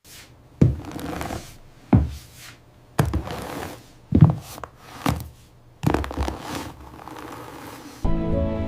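A string of about seven heavy thuds, roughly one a second, each trailing off in a short rustle; music begins near the end.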